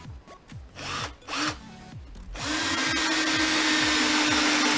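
Parkside cordless drill-driver in screwdriver mode, starting about halfway through and running steadily under load as it drives a 5 mm wood screw into timber without a pilot hole. Before it starts there are a couple of light handling sounds.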